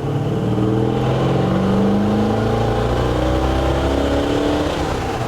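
1966 Chevy C10's 383 stroker small-block V8 pulling hard under full throttle, engine pitch rising steadily toward about 4,000–4,500 rpm for over four seconds, then falling back near the end as the pull ends.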